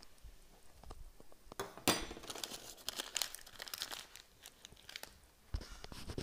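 Crinkling and rustling with scattered clicks and light clinks, starting about one and a half seconds in and lasting a couple of seconds, sharpest at its start, with a few more clicks near the end.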